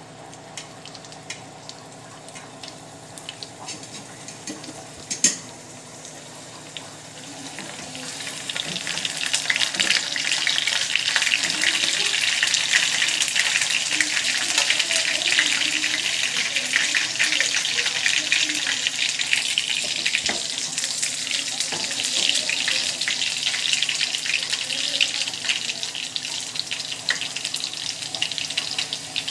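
Garlic cloves frying in hot oil in a small pan for a tempering: a faint sizzle with a few sharp pops, building about eight seconds in to a loud, steady crackling sizzle as the garlic cooks.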